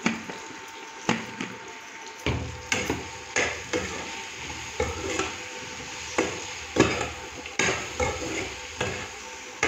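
Long steel spatula scraping and knocking against a wok-shaped pan in repeated strokes every half second or so, stirring frying cauliflower and potato pieces to work in dry spices and salt. A steady sizzle of hot oil runs underneath.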